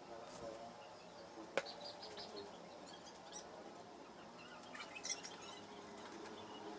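Small wooden pieces of a plywood jig tapping and clicking as they are handled and fitted by hand, with one sharp knock about one and a half seconds in. Birds chirp faintly in the background.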